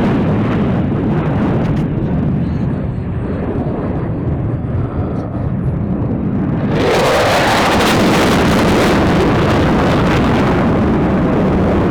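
Loud, steady aircraft engine roar, rumbling low, that suddenly swells louder and harsher about seven seconds in, with a brief rising sweep as it comes on.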